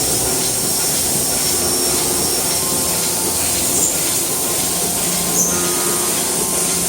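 Miyano LZ01R CNC lathe running: a steady mechanical whir with several held tones and a high hiss, and two brief clicks in the second half.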